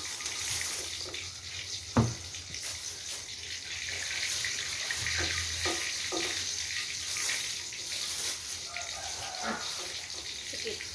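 Water running steadily from a tap, with one sharp knock about two seconds in and a few light clatters.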